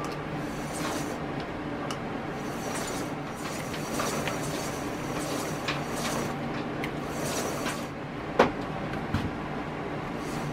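The chain-wrapped drive wheel and axle of a homemade wooden walk-behind tractor being turned by hand, the bearing just oiled to free it up. It makes a swishing turn that repeats about every second and a half, with a sharp knock about eight seconds in.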